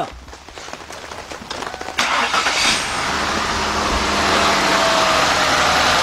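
2000 Mercury Cougar's Duratec V6 being started: it catches suddenly about two seconds in, then runs steadily at a fast idle that slowly drops in pitch as it settles. The engine has a misfire.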